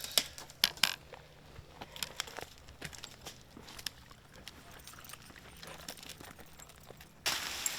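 Footsteps crunching and scuffing through dry leaf litter over rock, a scatter of irregular crunches and snaps. Near the end a steady hiss cuts in suddenly.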